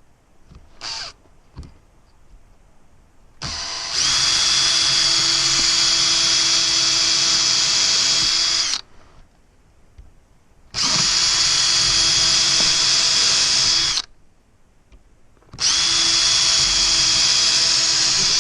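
Power drill with a 7/64-inch bit boring screw pilot holes, run three times in steady bursts: about five seconds, then about three, then about three, each held at a constant high whine.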